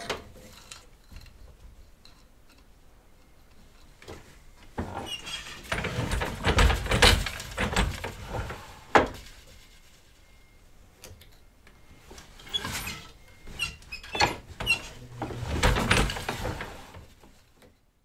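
Wooden hand loom being worked while weaving a twill: wooden parts sliding, rubbing and knocking in two spells with a quieter stretch between, with a sharp knock about nine seconds in. The sound fades out at the very end.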